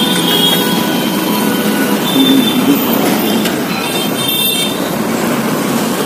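Steady roadside traffic noise: a continuous din of passing vehicles, with a few brief high tones over it.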